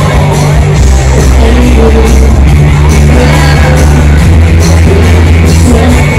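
Live pop music played through an outdoor PA system: a singer over a band with heavy bass and a steady beat.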